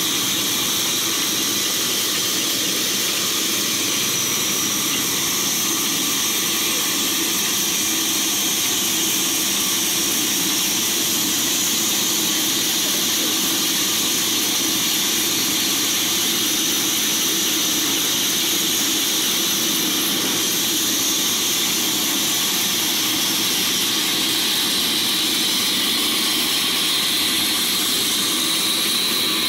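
Large vertical band sawmill running and cutting through a log: a steady, high-pitched whine from the blade, holding on without a break.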